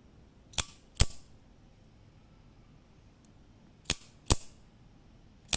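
Mini OTF automatic knife's spring-driven blade firing out and snapping back in: sharp metallic clicks in pairs about half a second apart, twice, with a third click at the end.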